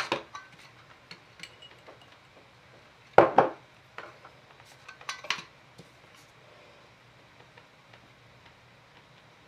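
A small glass jar and a small metal mesh tea strainer clinking together three times as flocking powder is poured into the strainer, the loudest knock about three seconds in. Light ticks follow as the strainer is tapped to sift the powder.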